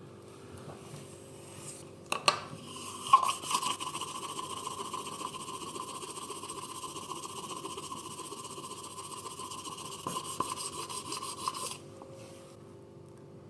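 A small electric tool, started with a couple of sharp clicks about two seconds in, runs with a steady whine for about ten seconds and then stops suddenly.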